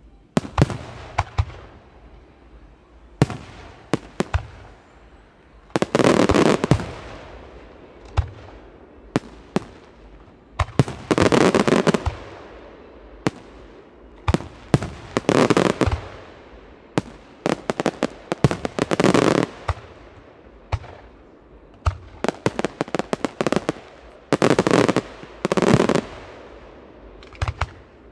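Weco aerial firework shells bursting with sharp bangs throughout. Five dense volleys of many close bangs each last about a second, coming every four to six seconds.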